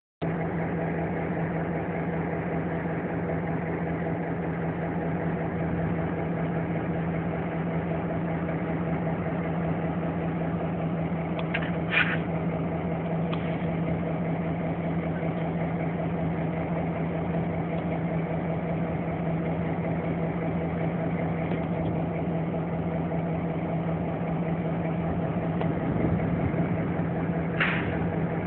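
Diesel locomotive engine running steadily with a low hum. Two brief high-pitched squeals break through, one about twelve seconds in and one near the end.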